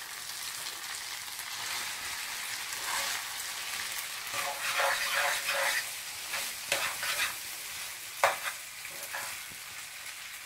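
Maggi noodles and scrambled egg sizzling in oil in a frying pan while a fork stirs and tosses them. The fork scrapes through the noodles and gives a few sharp taps against the pan in the second half.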